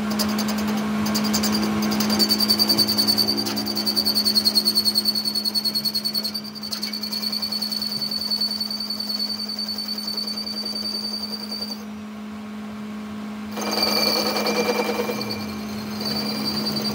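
Metal lathe running, its tool bit cutting a spinning metal disc: a steady machine hum under a high, even whine from the cut, with a rapid rhythmic chatter a few seconds in. The cutting sound drops away for a moment near the end, then comes back louder.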